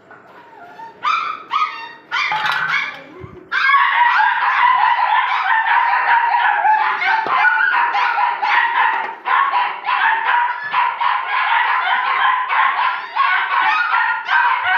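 Bull terrier puppies barking and yipping, high-pitched: a few separate yaps at first, then from about three and a half seconds in a continuous rapid run of barks, several a second.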